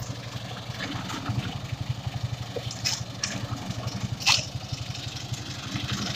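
Small engine of a concrete vibrator machine running steadily at idle with an even, fast pulse. A few sharp scrapes or knocks sound over it, the loudest about four seconds in.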